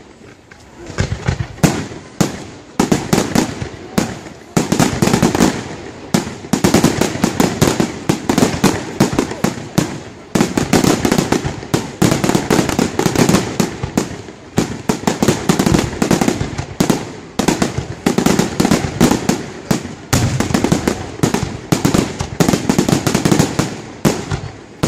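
Aerial firework shells bursting in a fast, dense barrage of bangs and crackles. It starts about a second and a half in after a short lull and comes in waves of several seconds with brief dips between them.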